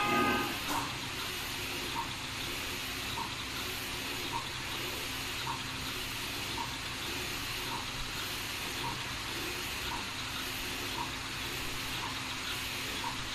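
TX2 direct-to-garment t-shirt printer running, its printhead carriage shuttling back and forth over the shirt on the platen: a steady mechanical hiss with a light tick about once a second. A short horn-like toot sounds right at the start.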